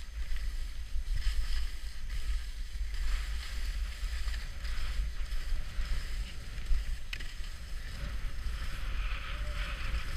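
Skis hissing and scraping over packed snow on a downhill run, with wind buffeting the microphone as a constant low rumble.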